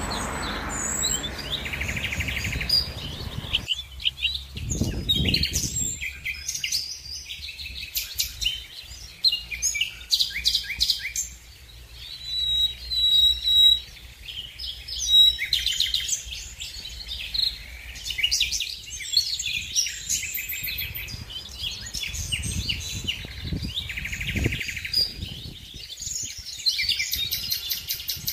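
Several small birds chirping and singing, many short calls and trills overlapping. A low rumble runs beneath them for the first few seconds, then cuts off.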